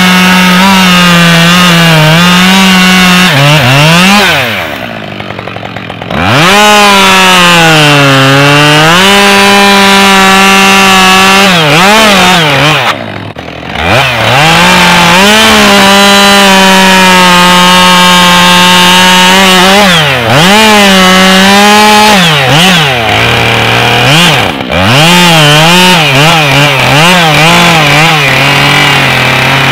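Husqvarna 572XP two-stroke chainsaw running at full throttle, its pitch sagging and recovering under load as it cuts wood. It drops briefly to idle twice, then revs up and down in quick bursts near the end.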